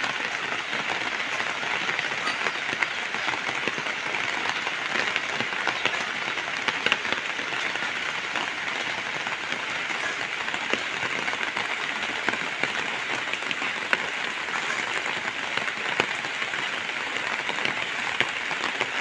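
Heavy rain falling steadily on leaves and ground, an even hiss with scattered sharper drop hits.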